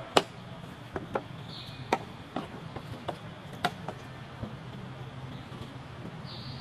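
Irregular sharp clicks and snaps, about nine in the first four and a half seconds, over a steady low hum. A short high chirp sounds about one and a half seconds in and another near the end.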